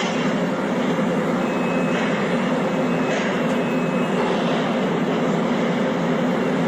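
Steady industrial rumble of a container-ship loading terminal across the harbour channel, with a few faint knocks and a faint high tone heard twice.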